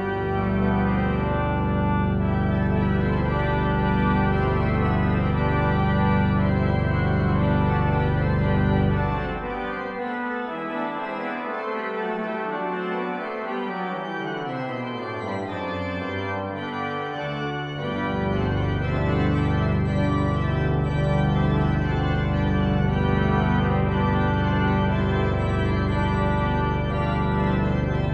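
Church organ playing sustained full chords over a deep pedal bass. About ten seconds in, the bass drops out and a line steps downward through the chords. The deep bass comes back in about eight seconds later.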